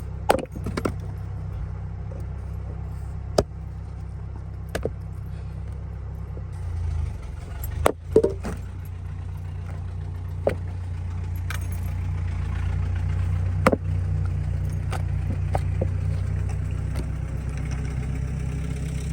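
A farm vehicle's engine running, growing louder through the middle and then easing off as it passes, with a few sharp knocks now and then.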